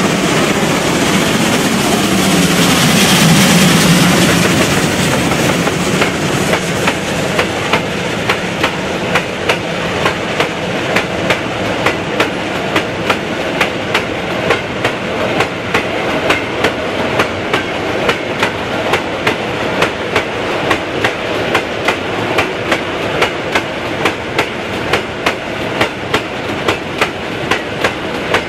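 DR class 44 three-cylinder 2-10-0 steam freight locomotive passing close by with a loud hiss of steam from its open cylinder drain cocks, swelling to a peak a few seconds in. Then a long train of bulk hopper wagons rolls past with a steady clickety-clack of wheels over the rail joints.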